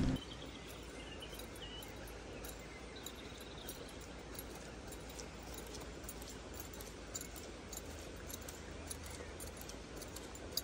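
Quiet outdoor ambience: a low, steady background hiss with a few faint bird chirps in the first few seconds.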